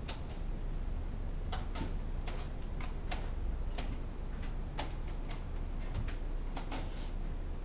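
Quick, irregular clicks from a five-minute blitz chess game: wooden pieces being set down on the board and the chess clock being slapped after each move, about a dozen clicks in all, over a low steady room hum.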